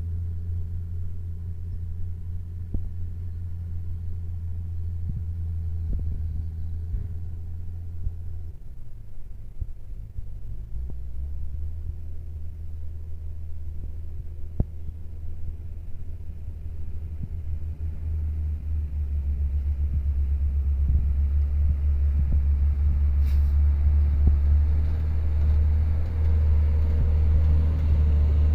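Loaded Hino dump truck's diesel engine running as the truck drives up and passes close by: a low rumble that grows louder over the last ten seconds. The engine note changes about nine seconds in, then settles again.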